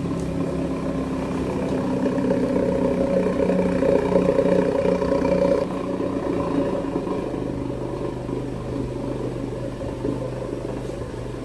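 Toyota Calya's four-cylinder engine sounding through an aftermarket SUOS 'ngorok' dual-outlet exhaust, tuned for a snoring note. It is held at raised revs for a few seconds, then drops back about halfway through to a steady idle.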